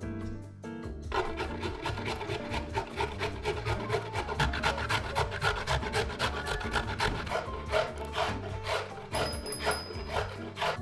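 A carrot being grated on a stainless steel box grater: a fast run of repeated rasping strokes that starts about a second in, over background music.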